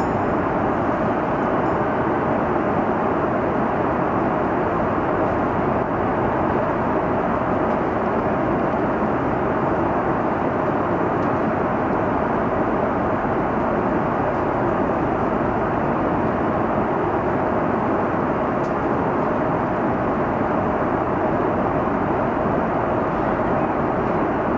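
Steady cabin noise inside an Airbus A330 airliner in flight: an even, unbroken rush of engine and airflow noise.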